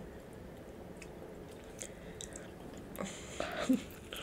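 Someone eating a cheeseburger: faint wet chewing and small mouth clicks. Just after three seconds in there is a louder stretch, a brief voiced sound and a bite into the burger.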